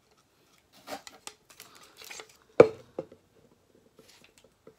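A plastic tumbler and its straw being handled: scattered light plastic clicks, rubs and rustles, with one sharper knock about two and a half seconds in.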